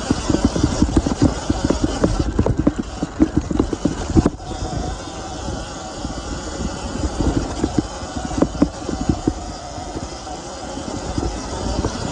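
Sur-Ron Ultra Bee electric dirt bike ridden over a rough dirt trail, heard from a handlebar-mounted camera: a steady low rumble of wind and trail noise with irregular knocks and rattles as the bike goes over bumps. The knocking is busiest in the first few seconds and again around eight to nine seconds in.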